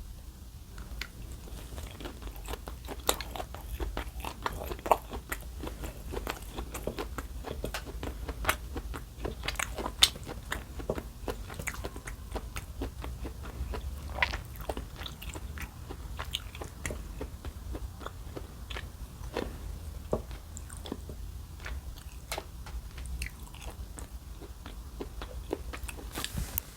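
Close-up crunching of crisp food in a dense, irregular run of small crackles and clicks, with a few sharper snaps.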